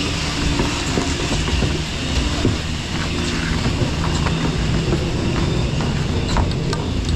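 Bubble chairlift station machinery running with a steady hum, with scattered clicks and rattles as the chairs pass through the loading area, more of them near the end.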